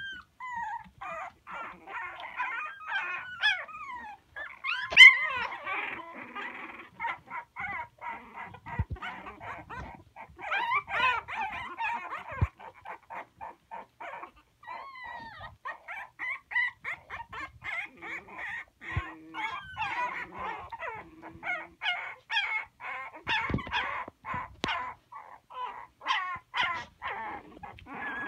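A litter of young puppies whining, squeaking and yelping: many short, high-pitched cries in quick succession, the cries of hungry puppies.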